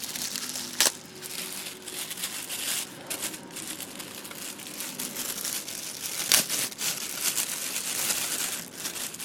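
Plastic packaging and bubble wrap crinkling and rustling continuously as a new part is unwrapped by hand. Two sharper, louder crackles stand out, one about a second in and one after about six seconds.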